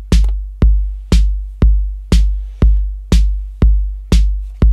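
Drum loop playing from a Native Instruments Maschine+ groovebox: a four-on-the-floor kick drum hits about twice a second, with a snare landing on every other beat.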